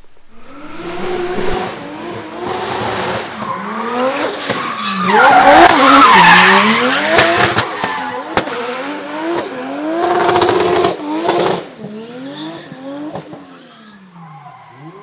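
Drift car at full slide: the engine revs up and down over and over, with tyres squealing and skidding, loudest about halfway through. It fades in the last few seconds.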